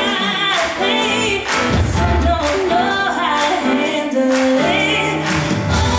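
A woman singing a slow pop song with backing music.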